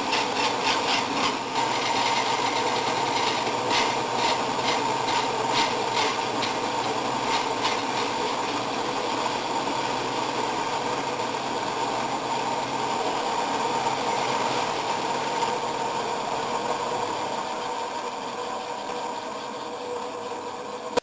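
Band saw running and cutting a wooden rod being turned into a dowel: a steady hum with a rasping cut and about two or three ticks a second, the ticks fading after about eight seconds. The sound cuts off suddenly at the end.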